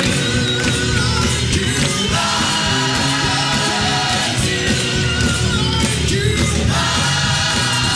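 Loud live gospel praise music: instruments playing with a choir singing and clapping along.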